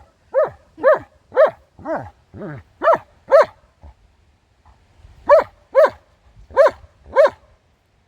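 A dog barking repeatedly, about two short barks a second, in two runs of barks with a pause of a second or so between them.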